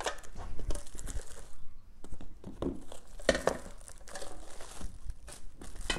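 Plastic wrapping and cardboard packing crinkling and rustling irregularly as accessories are rummaged out of an appliance box, with a few light knocks.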